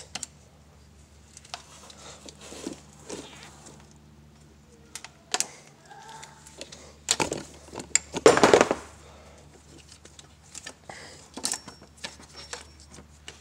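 Scattered light clicks and knocks as a wrench works the belt tensioner and gloved hands pull the serpentine belt off its pulleys, with one louder rustling scrape lasting about half a second, around eight seconds in.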